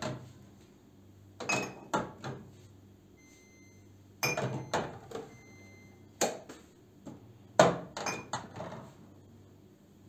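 Small glass mineral-water bottles set one by one into a refrigerator's plastic door shelf: a series of sharp clinks and knocks as the bottles touch each other and the shelf.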